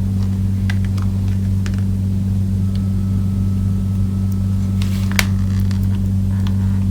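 Steady electrical mains hum, with a few faint small clicks from work on the transmitter board, one a little more distinct about five seconds in.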